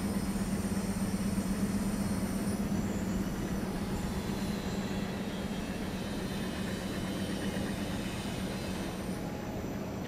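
Steady machine hum with a broad rushing noise, easing off slightly toward the end.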